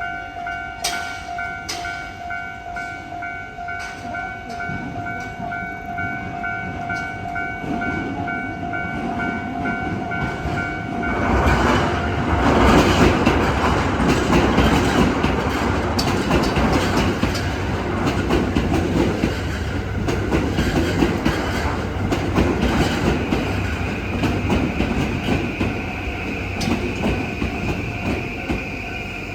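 A Japanese railway level-crossing warning bell rings in a steady, repeating pattern. About eleven seconds in, a train passes through the crossing with a loud rumble and clattering wheels that drowns the bell for the rest of the time.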